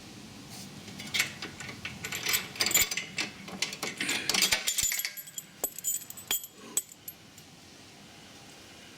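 Small loose metal parts clinking and rattling as they are handled, dense for a few seconds and then thinning out to a few separate clicks before stopping.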